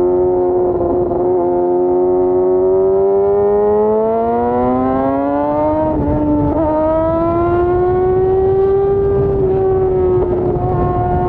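Yamaha FZ6's 600 cc inline-four engine under way, its note rising steadily for about six seconds as the bike accelerates, a brief hitch about six seconds in, then holding at a fairly even pitch.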